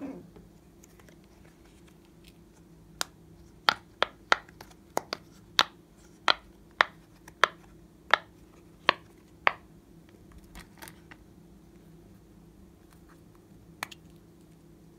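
Bubbles of a silicone pop-it fidget toy being pressed in, making about a dozen sharp pops at roughly two a second, starting a few seconds in.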